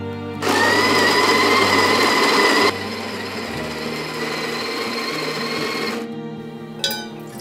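Breville electric burr coffee grinder grinding beans, a steady motor whine with a grinding rasp. It starts about half a second in, drops in level a little before the halfway point, and stops about six seconds in. Soft background music runs underneath.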